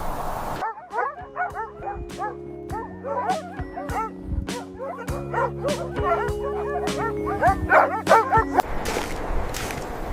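A pack of dogs yipping and whining excitedly, many short rising-and-falling yelps overlapping, over steady held music tones. Both start about half a second in and stop abruptly near the end, leaving a windy hiss.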